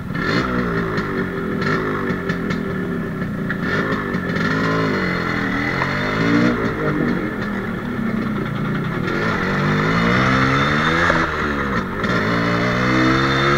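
Yamaha RXZ two-stroke single-cylinder engine pulling away and accelerating. The revs climb and drop back several times as the bike shifts up through the gears.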